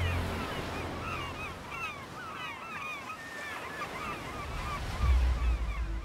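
A flock of birds calling over and over in short, bending, overlapping calls, over a steady hiss. Music dies away at the start, and a brief low rumble comes about five seconds in.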